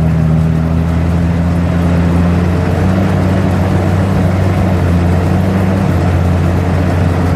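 Engine of an all-terrain vehicle running steadily under load while towing loaded sledges, heard from inside the cab. Its pitch steps up slightly about three seconds in.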